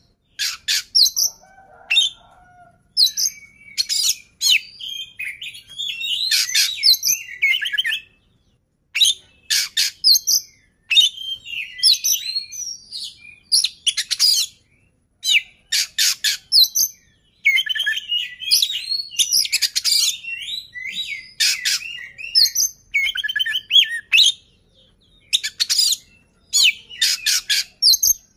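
Male Oriental magpie-robin singing: a loud, varied song of quick whistled and chattering phrases broken by short pauses, with a brief silence about eight seconds in.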